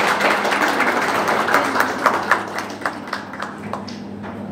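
Audience applauding, the dense clapping thinning to a few scattered claps about three to four seconds in.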